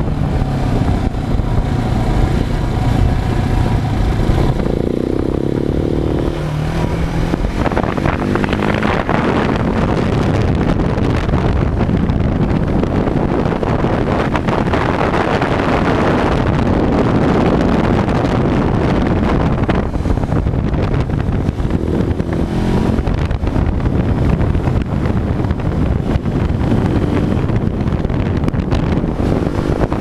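Wind buffeting the microphone over the KTM 690 SMC's single-cylinder engine running under way on the motorcycle. The engine pitch shifts up and down in the first several seconds, then is mostly buried under the steady wind noise.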